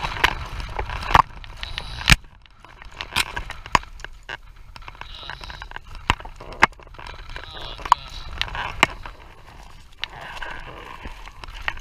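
Irregular clicks, knocks and scrapes of a camera on a flexible bendy-leg tripod being handled close to the microphone, the loudest knock about two seconds in, over a steady low rumble.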